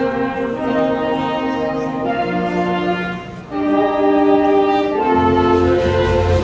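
Orchestral music with bowed strings and brass playing slow, held chords; it dips briefly about three and a half seconds in, then comes back louder, with a low bass line joining near the end.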